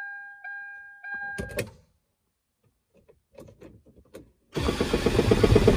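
A steady electronic warning beep sounds briefly and stops with a click. About four and a half seconds in, the starter begins cranking a Toyota diesel engine with a fast, even beat. The fuel cutoff solenoid is unplugged, so the engine turns without firing, only to prime the turbo's oil line.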